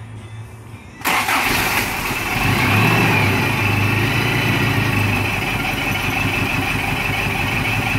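Engine of a lifted off-road 4x4 truck, just back from a machine-shop tune-up, firing up about a second in. It picks up briefly, then settles into a steady idle with a high whine over it.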